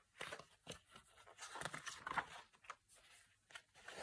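Pages of a picture book being turned by hand: faint paper rustling with soft scattered clicks, briefly louder about two seconds in.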